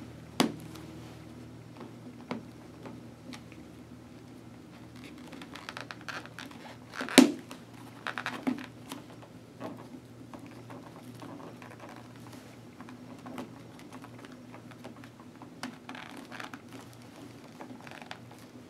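Handling noise from a chin curtain being fitted into a motorcycle helmet's chin bar: scattered clicks and taps with soft rustling, the sharpest click about seven seconds in, over a faint steady hum.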